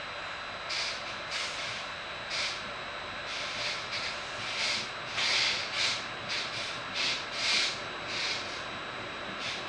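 Vivalto double-deck regional train running at speed, heard from inside the coach: a steady rolling rumble broken by short hissing rushes every second or so.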